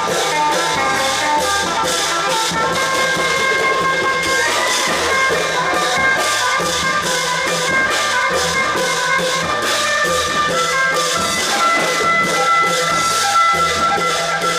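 Thai klong yao long-drum ensemble playing: a steady, evenly spaced drum beat under held melody notes.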